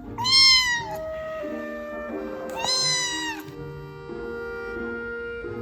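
Kitten meowing twice, two loud high-pitched cries about two and a half seconds apart, over soft background music with sustained notes.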